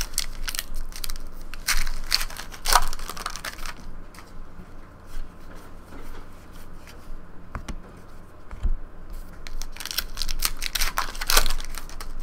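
A trading-card pack wrapper is torn open and crinkled, in two crackly spells: one at the start and one about ten seconds in. Between them, quieter card handling.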